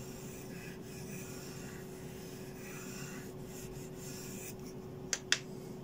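Pencil scratching lightly on paper in short strokes, sketching an oval. Two sharp clicks a little after five seconds in are the loudest sounds.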